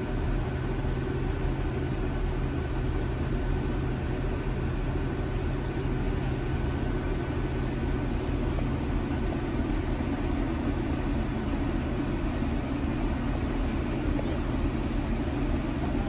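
A diesel railcar's underfloor engine idling, heard from inside the stationary carriage: a steady low hum that does not change.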